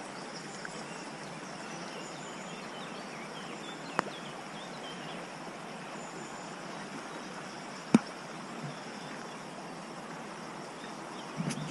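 Steady rush of running water with small birds chirping faintly, and two sharp clicks, about four and eight seconds in.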